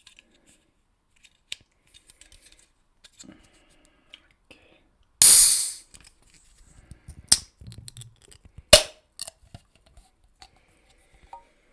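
Aluminium Monster energy drink can: quiet handling clicks, then the pull-tab cracked open with a loud hiss about five seconds in that fades within a second, followed by two sharp clicks.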